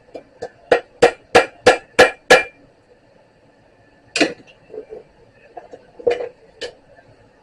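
Hammer striking the nut welded onto a broken thermostat housing bolt. Two light taps lead into a run of six sharp raps at about three a second, and after a pause a few more raps come spaced out, some softer.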